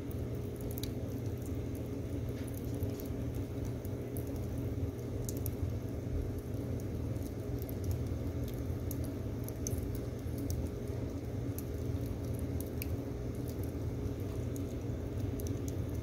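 Firewood burning in a wood stove, crackling with irregular sharp pops and ticks over a steady low rumble.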